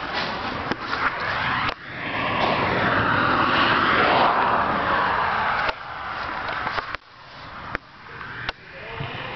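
Road traffic: a passing vehicle whose noise swells to its loudest a few seconds in, broken by sudden drops and a few sharp clicks.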